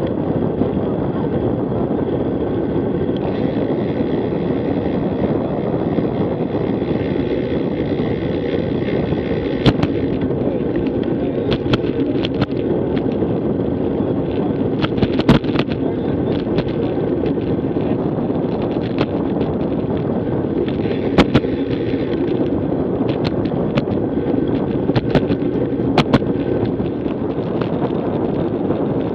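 Wind buffeting a Garmin Virb action camera's microphone on a moving bicycle, a steady rushing noise. From about ten seconds in, scattered sharp knocks and clicks break through, typical of the bike and camera mount jolting over rough pavement.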